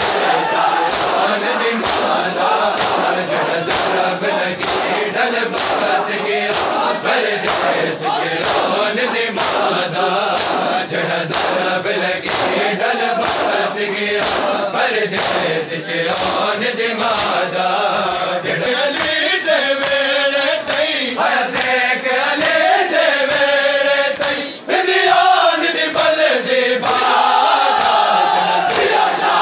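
A crowd of men chanting a mourning lament together while beating their chests in unison (matam), the sharp slaps coming about four every three seconds. In the later part, one lead voice sings more clearly above the crowd, and the sound dips briefly about 25 s in.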